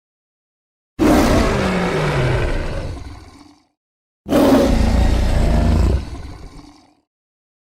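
Two separate Carcharodontosaurus dinosaur roar sound effects, each about two and a half seconds long and fading out into silence; the first falls in pitch as it goes.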